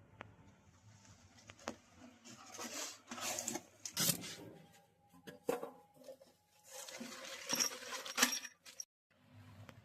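Clinks and taps of tools and metal parts being handled, with two longer stretches of rustling, scraping noise and a faint low hum underneath.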